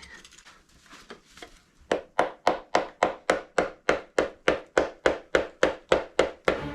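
Quick, even tapping on the Kawasaki KZ400J engine during teardown, likely a hammer or mallet knocking a part loose. The taps start about two seconds in, come about four a second, and number about nineteen.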